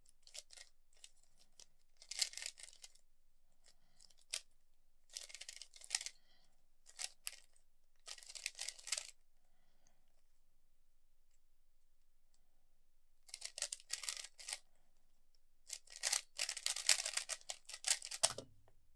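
A 3x3 plastic speed cube being turned rapidly by hand during a solve: bursts of quick clicking and scraping from the layers, with a pause of a few seconds in the middle.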